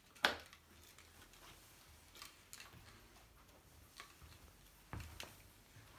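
A single sharp click as the e-bike battery's cable connector is plugged in, followed by a few faint ticks and a soft knock.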